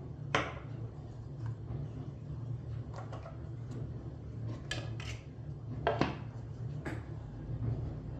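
Dishes and cutlery clinking and knocking, about half a dozen separate knocks, the loudest near the start and about six seconds in, over a steady low hum.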